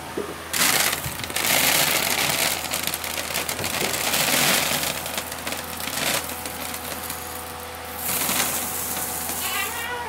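Calf starter pellets poured from a plastic scoop into a rubber feed pan: a steady, grainy hiss of feed running out, in two stretches, the second starting about eight seconds in.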